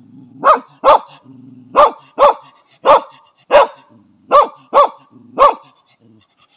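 A Vietnamese native hunting dog barking sharply at a snake it has found. There are about nine barks at an uneven pace, several coming in quick pairs.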